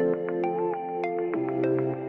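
Background music: a light electronic track with mallet-like plucked notes at a steady beat over sustained chords that change every half second or so.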